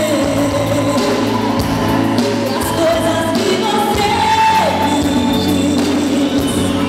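A woman singing into a microphone over instrumental accompaniment, holding long notes, with one note sliding down about four and a half seconds in.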